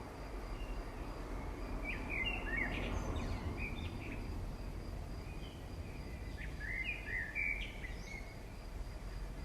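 Small birds chirping in short clusters, about two seconds in and again around six to eight seconds, over a steady low background rumble.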